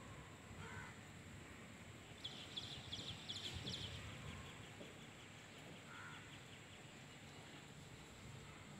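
Peacock shaking its raised train, a rapid dry rattle of the quills lasting under two seconds, about two seconds in. Two faint short bird calls come before and after it.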